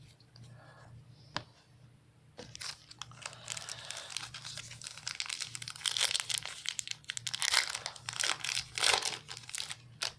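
Trading card pack wrapper being torn open and crinkled. A single click comes first, then from about two and a half seconds in a continuous crinkling with several louder crackles.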